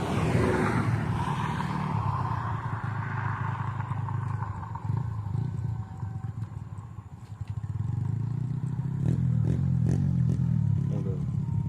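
Excavator diesel engine running, with a high whine that falls in pitch over the first two seconds. The engine sound drops away around the middle and comes back strong, with a few clanks near the end.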